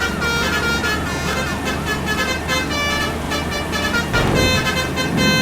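Bus 'telolet' basuri multi-tone air horn playing a tune of stepped notes, with a warbling tone rising and falling about five times in the first two seconds. The bus engine and road noise run underneath, getting louder from about four seconds in.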